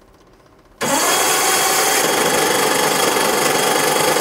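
Five-cylinder radial two-stroke snowmobile engine being started without choke: about a second in, a loud, dense, steady mechanical noise starts suddenly and holds for about four seconds, then cuts off abruptly without the engine staying running.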